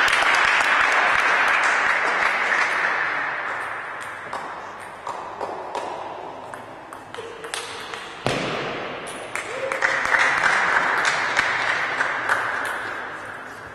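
Table tennis ball clicking off bats and table during rallies. Twice, about as a point ends, a loud rush of noise starts suddenly and fades over several seconds.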